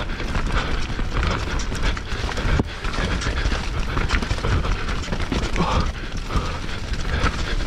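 A YT Jeffsy enduro mountain bike descending a rough trail at race speed: a steady clatter of chain, frame and suspension knocking over roots and bumps, with tyre noise and wind rumble on the helmet camera's microphone.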